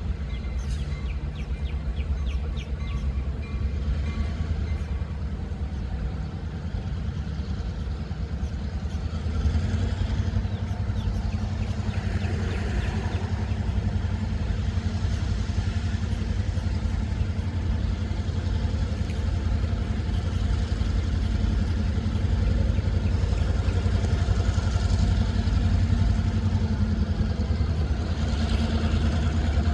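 GP38-2 diesel-electric locomotive's EMD 16-645 engine running as the locomotive approaches slowly, a steady low rumble that gets louder about nine seconds in and keeps building as it comes closer.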